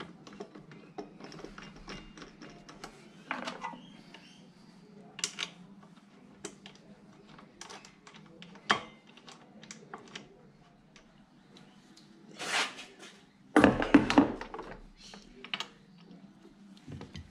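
Scattered metal clicks and clinks of hand tools and brake parts as a motorcycle's front brake caliper is worked on during a pad change, with a louder burst of metal clatter about 13 to 14 seconds in. A steady low hum runs underneath.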